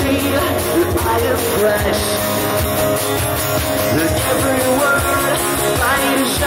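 Live pop-punk band playing loud, with electric guitars, bass and drums and a male singer's vocals over them.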